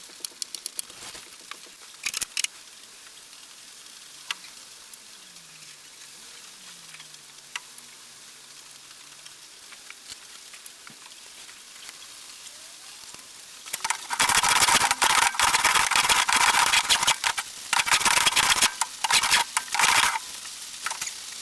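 Scattered light clicks and knocks of workshop handling, then, about fourteen seconds in, a few seconds of loud, rough noise from a power tool working wood, with a couple of short breaks before it stops.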